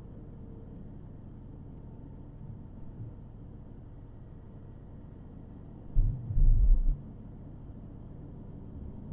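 Car driving along a road, a steady low rumble of tyre and engine noise. About six seconds in comes a loud low thump and rumble lasting about a second.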